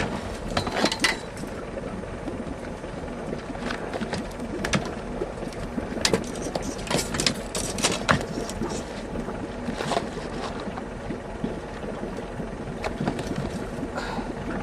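Boat motor running steadily at trolling speed, a low even hum, with scattered sharp knocks and clicks from handling on board.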